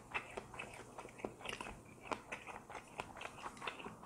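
Close-miked chewing of a mouthful of food: a quiet, irregular run of small wet mouth clicks and smacks.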